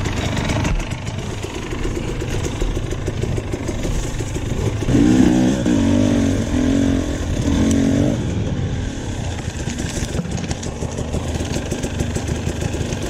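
KTM dirt bike engine running, revving harder from about five seconds in for roughly three seconds before settling back.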